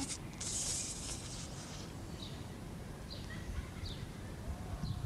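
A man's breath on a cigarette close to the microphone: a breathy rush of about a second and a half near the start, followed by faint, scattered bird chirps.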